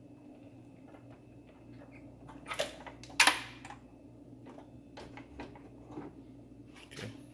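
Clinks and knocks of tools and parts being handled during an alternator and belt job: two sharp metallic clanks about two and a half and three seconds in, the second the loudest, then a few lighter clicks. A steady low hum runs underneath.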